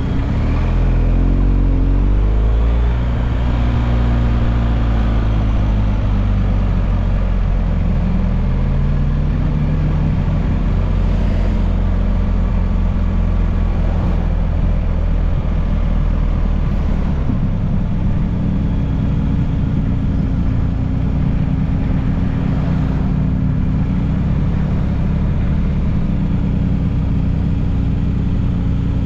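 BMW GS motorcycle engine running on a mountain downhill ride, with wind noise. The revs rise and fall over the first dozen seconds, drop about seventeen seconds in, then hold steady.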